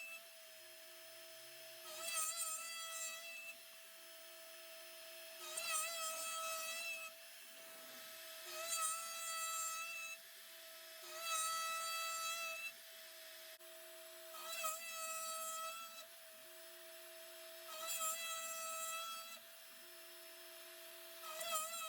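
CNC spindle with a 1/4-inch end mill running steadily and milling holes in a 1-inch aluminium plate. A louder, whining cutting sound comes back about every three seconds as the cutter bites on each pass around the hole.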